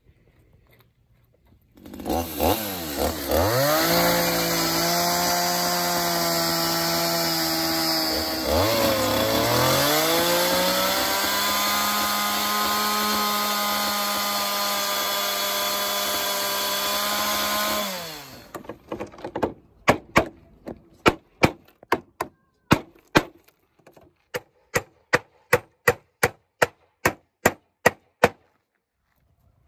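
A two-stroke chainsaw revs up and runs at high speed cutting through a wooden panel; its pitch dips once and climbs again partway through, and it stops after about sixteen seconds. Then a hammer drives nails into wood with a quick run of about twenty sharp blows, about two a second.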